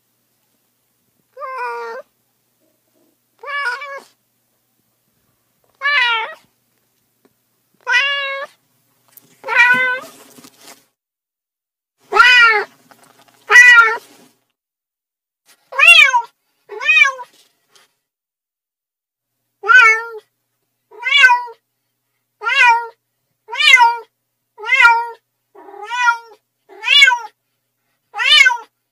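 Domestic cat meows, one after another: about seventeen separate calls, each rising and falling in pitch, about two seconds apart at first and about once a second near the end.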